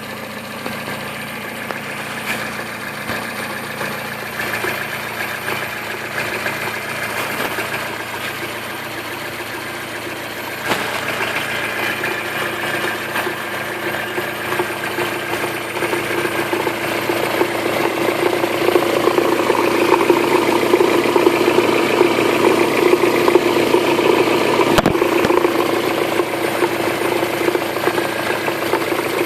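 Toyota 4E-FE 1.3-litre four-cylinder petrol engine running, with a rapid, even metallic knock whose cause the owner cannot identify. It grows louder about ten seconds in and again past the halfway point.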